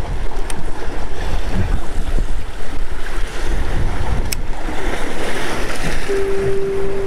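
Wind buffeting the action-camera microphone with a heavy low rumble, over choppy water slapping a small boat. About six seconds in, a steady mid-pitched tone comes in.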